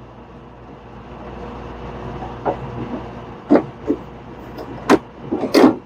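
A plastic merchandiser screen being slid down into its slot on a frozen-drink machine: a scraping rub, then several sharp plastic clicks and knocks as it seats, the last ones near the end.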